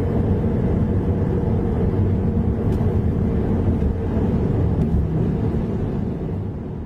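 Steady low rumble of a car driving, road and engine noise, fading out near the end.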